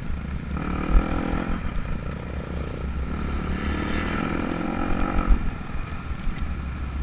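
Dirt bike engine in a 250 motocross race, heard from a helmet-mounted camera. The throttle opens and closes, so the engine note rises and falls, over low wind rumble, with a couple of thumps about a second in and near five seconds.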